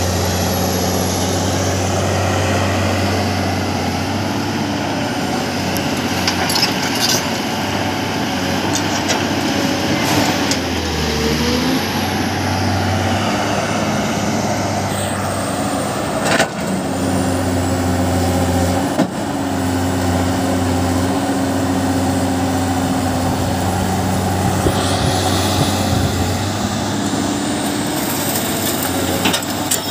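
Diesel engines of excavators and dump trucks running steadily, the engine note shifting up and down as the machines work. A couple of sharp knocks stand out past the middle.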